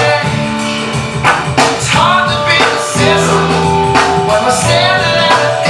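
Pop/rock song with singing over instruments and a steady beat.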